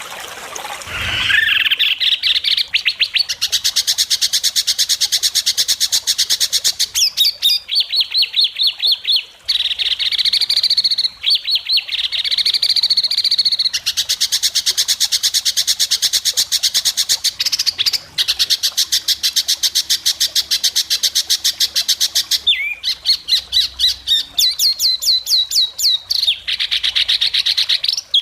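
White-rumped shama (murai batu) singing long runs of very rapid, sharp repeated notes, the fast 'besetan' delivery prized in songbird contests, broken by short clearer whistled phrases.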